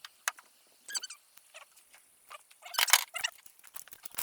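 Can of expanding spray foam sputtering and hissing in irregular spurts as foam is sprayed into a tire, with squeaky crackles, densest about three seconds in.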